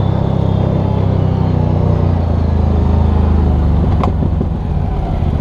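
Can-Am Maverick 1000's Rotax V-twin engine running steadily under throttle as the side-by-side drives on dirt, heard from the onboard camera. A single short knock about four seconds in.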